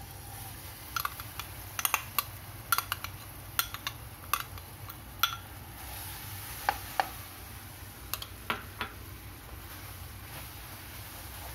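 Metal spoon clinking and scraping against a nonstick frying pan and a paper cup as jam is scooped out and spread, a string of irregular sharp clicks that stops about nine seconds in.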